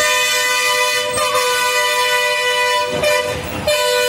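A vehicle horn sounding long and loud, two tones together with a stack of overtones, breaking off briefly about three seconds in and starting again near the end.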